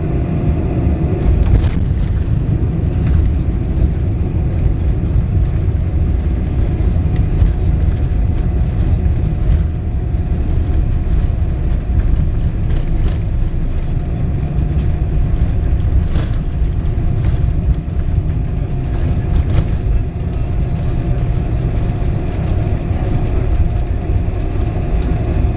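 Boeing 747-400 landing rollout heard from inside the cabin: a loud steady rumble with a steady tone running through it, spoilers up as the jet slows on the runway. A few sharp thumps come through it, one about two seconds in and three more in the second half.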